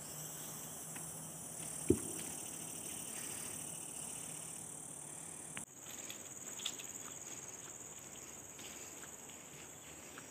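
Steady high-pitched drone of forest insects, with a single sharp thump about two seconds in. A little after halfway the drone changes abruptly to a different pitch, and faint scattered ticks follow.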